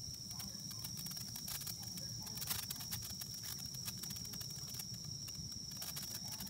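Faint, sparse crackling from a handheld sparkler as its glowing bead starts throwing branching sparks: a few soft scattered pops over a steady high-pitched tone.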